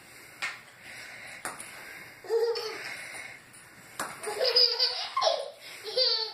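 A baby girl laughing in short, bubbling bursts: a first giggle about two seconds in, a longer run of laughter around four to five and a half seconds, and another just before the end. A few light knocks come in the first second and a half.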